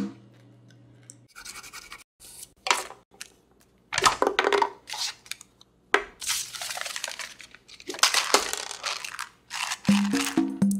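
Several short bursts of rustling, crinkling and clicking as a plastic Tic Tac mint box and a sheet of paper are handled. Music comes in near the end.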